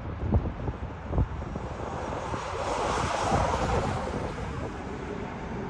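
Distant jet noise from a four-engine Airbus A380 on the runway, a broad rush that swells to a peak about halfway through and then eases slightly. Wind buffets the microphone with low thumps.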